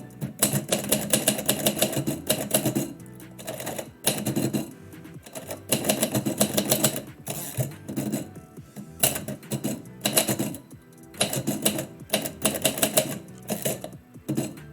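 Typewriter keys struck in quick runs of typing, several bursts with short pauses between them, over background music.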